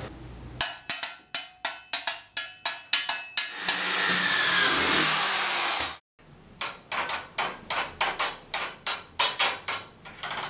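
Workplace tool sounds edited into a rhythm: sharp hammer-like knocks at about four a second. About three and a half seconds in they give way to a steady hissing noise, which cuts off abruptly for a moment of silence. Then the knocks resume in the same even rhythm.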